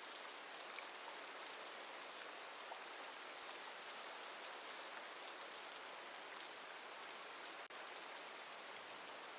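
Steady rain: an even, continuous hiss of many raindrops, with a split-second dropout about three-quarters of the way through.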